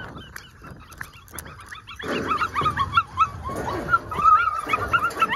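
A litter of puppies whining and yipping together, many short high squeals overlapping. The chorus gets denser and louder about two seconds in.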